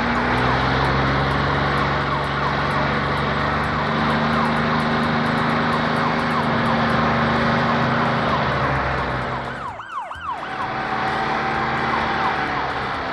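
Cartoon sound effects for a police SUV: an engine running steadily, then, about ten seconds in, a short warbling police siren.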